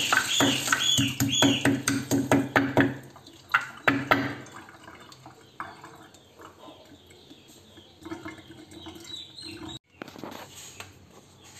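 Wooden pestle pounding in a small ceramic bowl, regular knocks about three a second, stopping about three seconds in. One more knock follows a second later, then only faint handling sounds.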